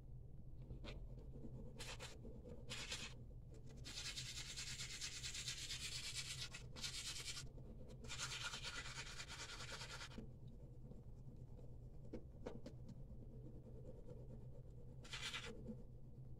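Toothbrush scrubbing teeth, faint, in spells: a few short strokes about two seconds in, longer runs of brushing from about four to ten seconds in, and one brief run near the end. A low steady hum lies underneath.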